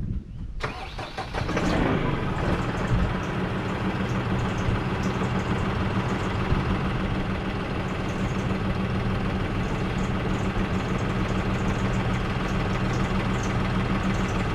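2020 Case IH tractor's diesel engine cranking and catching about half a second in, then idling steadily.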